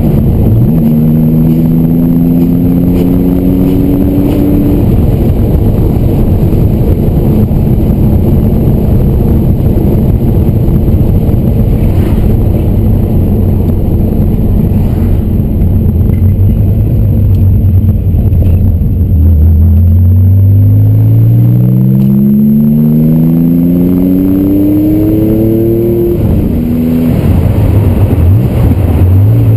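Air-cooled 3.0-litre flat-six of a 1976 Porsche 911 fitted with an SC engine, SSI exhaust and Dansk muffler, driving on the road. The engine note rises in pitch as the car accelerates, then holds steady through a stretch of cruising. About two-thirds of the way in it climbs hard again, drops sharply for a moment and climbs once more.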